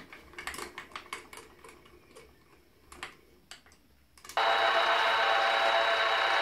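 Light metal clicks and clunks as the machine vise and steel workpiece are handled, then about four seconds in a Sieg X1 mini mill's motor switches on and runs with a steady whine.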